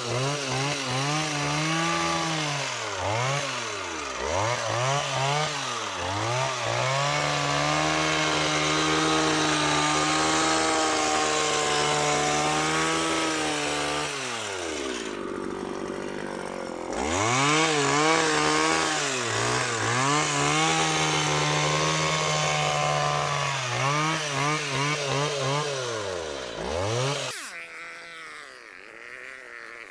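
Stihl HS 60 two-stroke hedge trimmer cutting a hedge, its engine revving up and down over and over. About halfway through it falls briefly to idle, then revs back up, and near the end it drops back to a low idle.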